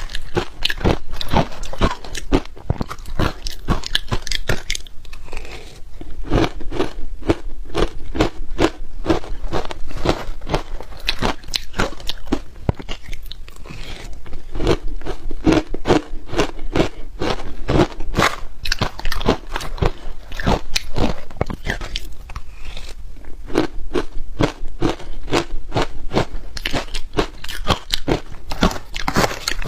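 Frozen shaved ice coated in matcha milk powder being bitten and chewed close to the microphone: continuous crunching with a few short lulls.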